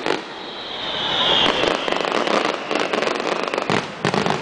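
Fireworks going off: a whistling firework whose pitch falls slowly over the first couple of seconds, then a rapid run of firecracker bangs and crackles from about halfway through.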